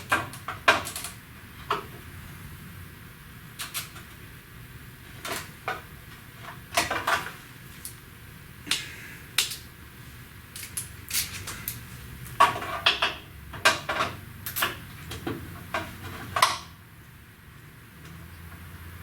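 Hand tools clinking and knocking against metal in irregular, sharp taps and short clusters while a fastener on a car's core support is worked loose.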